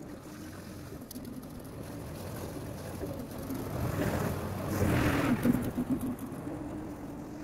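Lawn mower running with a steady hum, growing louder and noisier for about two seconds a little past halfway through.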